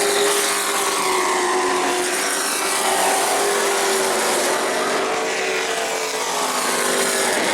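Race trucks' engines running at speed on track: a loud, steady drone with several engine notes drifting slightly up and down in pitch.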